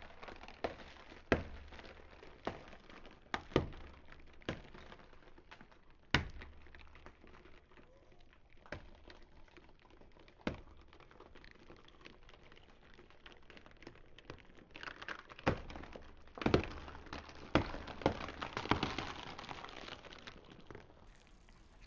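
Car tyre slowly crushing a tray of raw eggs: the shells crack one after another in sharp snaps, with the cardboard egg tray crumpling. The cracking thickens into a dense, louder run of crunching from about fifteen to twenty seconds in.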